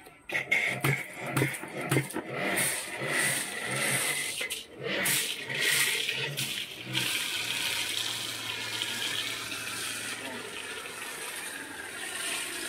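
Electric high-pressure washer (Shakti S5, 1900 W) spraying snow foam through a foam cannon with a steady hiss. For the first half the motor cuts in and out in short bursts as the trigger is squeezed; from about halfway it runs steadily under the spray.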